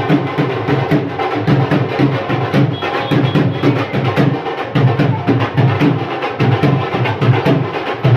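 Music with a steady, fast percussive beat.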